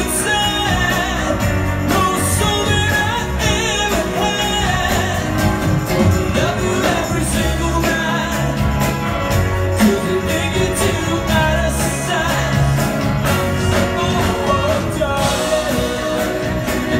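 A full rock-pop band playing live with a lead singer: drums, electric guitars, bass and keyboards under the vocal, heard from the audience in a concert hall.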